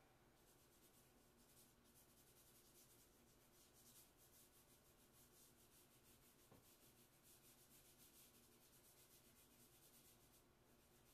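Faint, quick scratchy strokes of a hand working charcoal and chalk on Bristol paper, several a second, stopping about ten and a half seconds in.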